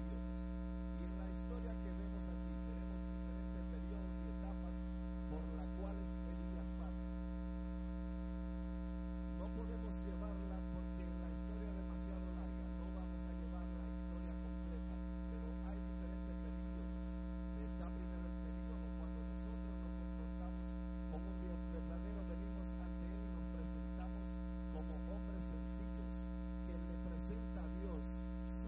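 Loud, steady electrical mains hum with a stack of overtones, with a man's voice speaking faintly underneath it.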